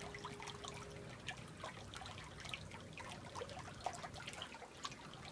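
Water trickling and dripping steadily into a turtle pool from a pond filter's outflow, a continuous patter of small plinks and splashes. A faint steady hum stops about a second in.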